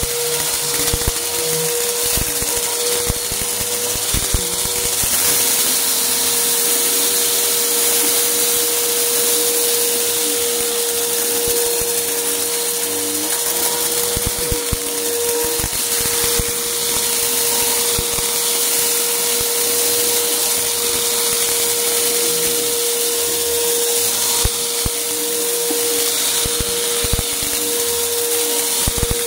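Upright bagless vacuum cleaner running steadily with a constant whine, crackling and clicking irregularly as it sucks up small hard bits scattered on carpet.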